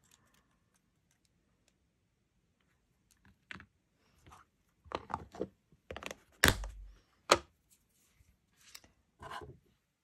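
Scattered clicks and knocks of hands handling a small plastic storage container of embossing powder, being snapped closed and set aside, after a quiet start. A dull thump and a sharp click a little past the middle are the loudest.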